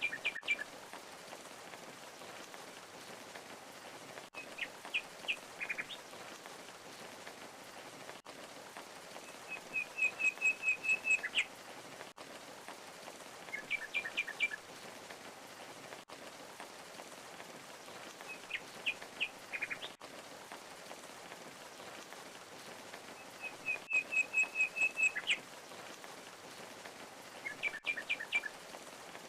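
Steady rush of a waterfall with small birds chirping over it every few seconds: short clusters of quick chirps, twice a rapid run of about eight even notes.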